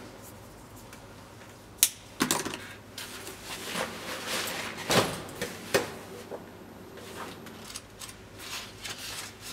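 Rummaging through a fabric shoulder bag: rustling of the bag and papers, with a few sharp clicks and knocks as items are handled and a book is taken out.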